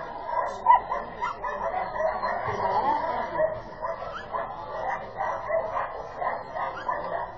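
Dogs barking and yipping over and over, in short overlapping calls.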